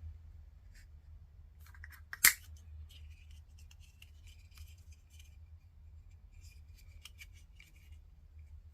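Heat-shrink tubing being cut to length: one sharp snip about two seconds in, followed by light rustling and small clicks as the tubing is handled.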